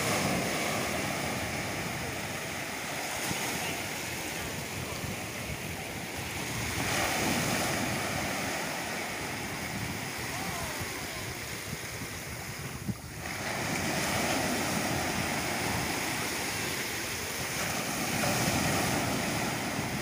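Small sea waves breaking on a sandy shore and washing up the beach, the surf swelling every few seconds.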